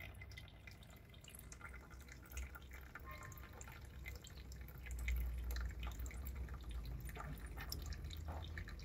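Thin stream of distilled flush water trickling and dripping from a car radiator's drain into a plastic tub; the water now runs clear, the sign that the radiator has been flushed clean. A low rumble sits underneath, stronger from about five seconds in.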